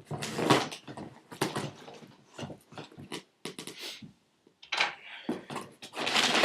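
A cardboard shipping box being opened and its packing paper handled: a run of short rustles and scrapes, then a loud, longer crumpling rush of paper near the end.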